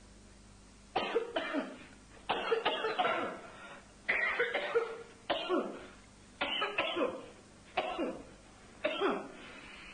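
A man coughing hard in a series of about seven coughing fits, starting about a second in and coming roughly once a second, each fit made of two or three coughs.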